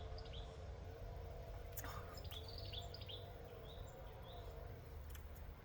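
Faint background of small birds chirping in short falling notes, several in quick succession around the middle, over a faint steady drone.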